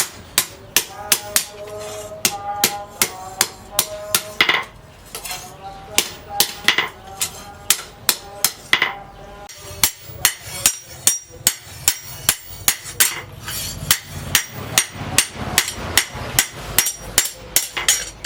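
Hand hammer blows forging disc-plough steel on an anvil, a steady run of about two to three strikes a second with a metallic ring after each, pausing briefly twice.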